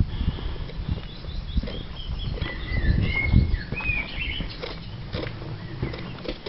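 Footsteps walking over a stone path and porch floor, with low rumbling camera-handling noise. A few short bird chirps sound in the background a couple of seconds in.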